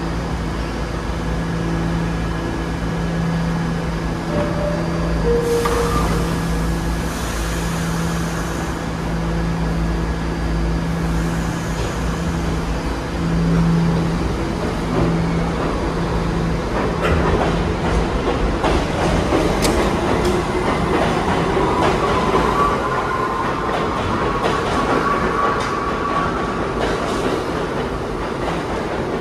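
R68 subway train standing at the platform with a steady equipment hum, and a two-note falling door chime about five seconds in. The train then pulls out, its traction motors whining upward in pitch and its wheels clicking over the rail joints as it gathers speed.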